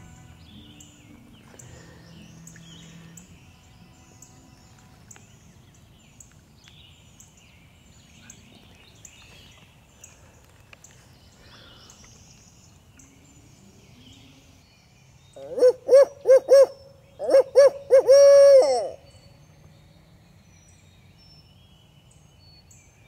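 A barred-owl hooting call used as a turkey hunter's locator call to make roosted gobblers answer. It is a loud, close run of hoots beginning about 15 seconds in: four short hoots, then a longer string that ends on a drawn-out note. Dawn songbirds chirp faintly throughout.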